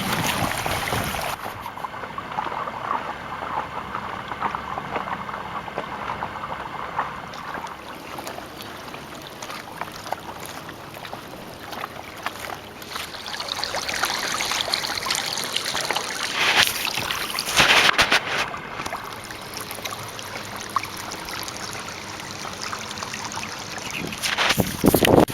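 Water trickling and splashing along the hull of an inflatable kayak moving under sail, with a few louder noisy gusts in the second half.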